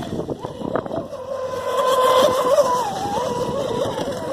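Electric RC racing boats on 3S LiPo power running laps: a motor whine that wavers in pitch with the throttle and dips briefly about three seconds in.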